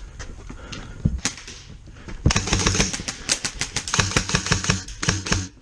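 Airsoft rifle firing: a couple of single shots about a second in, then a fast string of sharp clacking shots, about seven a second, from a little past two seconds until just before the end.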